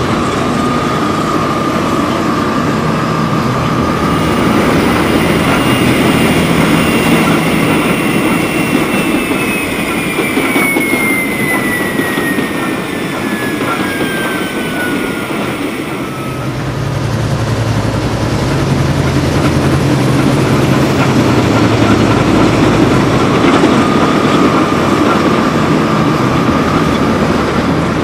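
Sound-fitted model locomotives running on track: the 'Fell' diesel's multi-engine sound runs steadily, with a steady high whine near the start and again near the end. Through the middle, a whine falls gradually in pitch as the GT3 gas-turbine model goes by.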